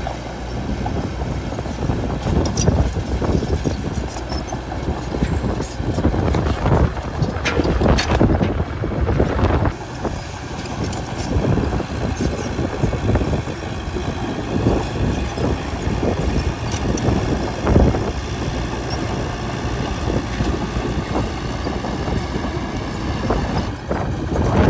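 Bulldozer's diesel engine running steadily under load, with irregular clanks and knocks from the tracks and blade as it pushes soil.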